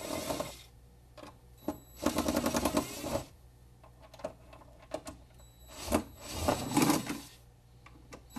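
DeWalt 20-volt cordless driver running in three short bursts to back screws out of a console-lid hinge. The first burst is at the start, the longest runs about a second from two seconds in, and the last comes around six to seven seconds in, with small clicks from the bit and screws between.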